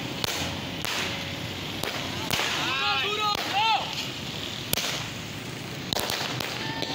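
Firecrackers going off in sharp, irregularly spaced cracks over a steady street-crowd din, with a voice calling out briefly about three seconds in.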